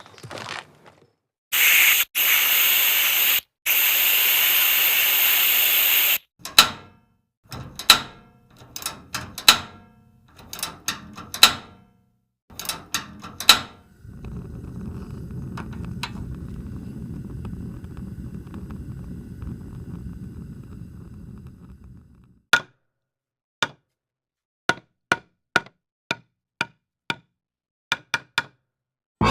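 A run of separate sound effects. First a few seconds of loud hissing, then a string of irregular knocks, then about eight seconds of low rumbling noise, and finally a series of short, sharp clicks.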